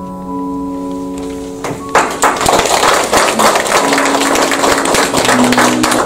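Soft instrumental background music of long held notes. About two seconds in, a small audience starts applauding, and the clapping runs over the music until it stops abruptly near the end.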